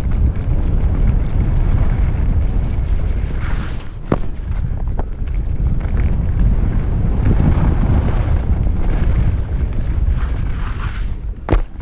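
Wind buffeting the microphone of a helmet-mounted camera at speed down a groomed piste, a heavy steady rumble, with the rider's edges scraping over the snow. A few sharp knocks come about four and five seconds in and again near the end.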